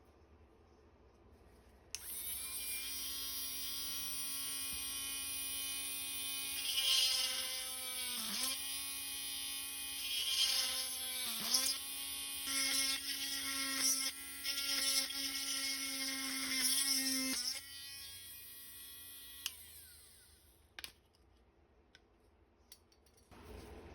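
Cheap Dremel-type rotary tool switched on about two seconds in, running with a steady high whine while cutting the plastic fairing, its pitch sagging briefly a couple of times as it bites. It is switched off about three-quarters of the way through and winds down, followed by a few faint clicks.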